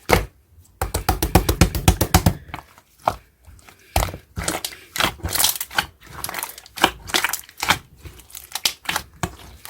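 Banana milk slime being squeezed and stretched by hand: a quick run of sticky popping clicks about a second in, then irregular squishes and crackles as air pockets burst.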